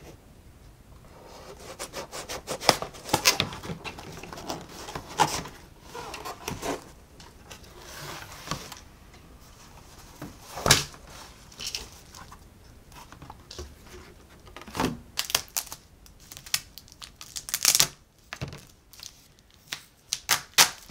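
A cardboard box being opened and plastic-wrapped wooden kit parts handled: scattered taps and knocks, with rustling and crinkling of plastic wrap.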